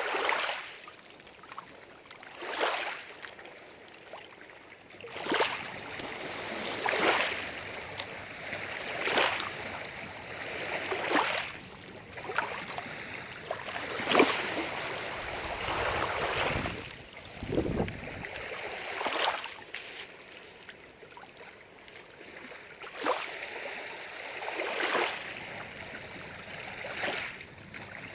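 Small waves lapping and splashing against the lake shore, one swell about every two seconds over a steady watery wash.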